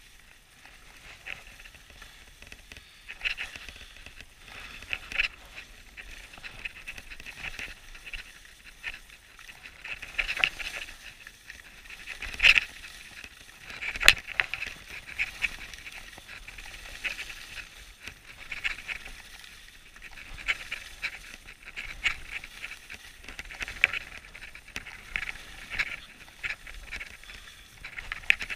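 Edges scraping and hissing on groomed snow during a downhill run, swelling and fading with each turn about every second or two. Two sharp knocks come about halfway through.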